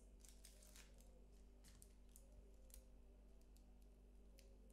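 Faint, scattered light clicks and crackles of dry onion skin being picked and peeled off a halved onion with a kitchen knife.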